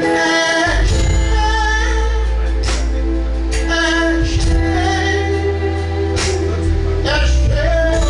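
Live gospel worship music: a woman singing over a band with sustained keyboard chords and a heavy bass line.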